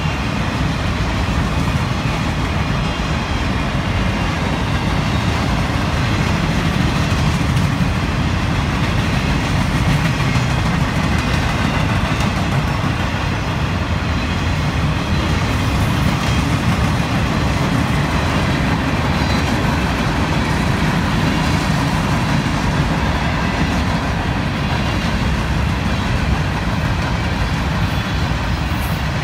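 Cars of a CSX manifest freight train rolling past, a steady low rumble of steel wheels on the rails.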